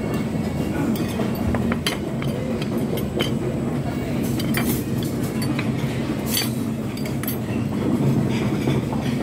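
Metal cutlery and ceramic plates clinking at a dining table, with a handful of sharp clinks scattered through, over the steady din of a busy buffet restaurant.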